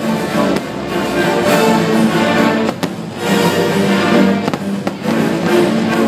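Loud orchestral show music with strings, with several sharp fireworks bangs breaking in over it as shells burst overhead.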